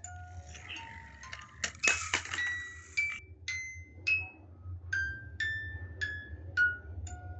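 Background music of single chime-like notes at changing pitches, about one to two a second, each ringing briefly. A short clatter of clinks comes about two seconds in.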